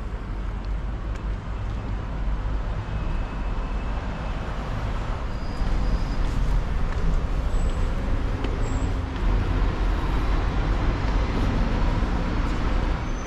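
Steady low rumble of city traffic, growing a little louder about halfway through, with a few faint short high chirps.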